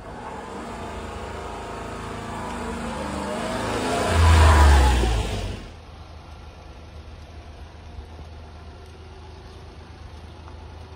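Honda Acty mini truck's small three-cylinder engine, growing louder and rising in pitch as the truck drives up close, loudest about four to five seconds in. After that, a steady low idle.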